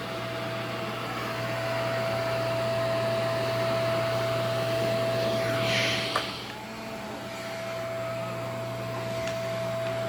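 HiCOZY pet grooming vacuum running steadily with a constant whine, sucking loose fur off a malamute's coat through its brush attachment. A single sharp click comes about six seconds in.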